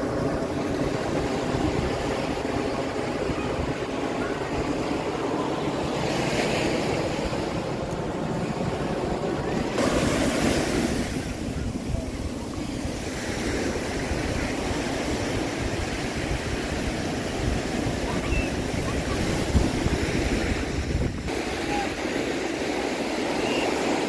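Ocean surf washing onto a sandy beach, with wind buffeting the microphone.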